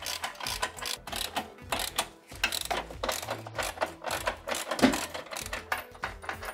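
Hand ratchet clicking in quick runs as it backs out screws.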